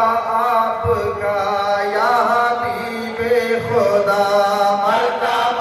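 Men's voices chanting a naat (Islamic devotional poem in praise of the Prophet) in a melodic, drawn-out style with long held, ornamented notes, unaccompanied.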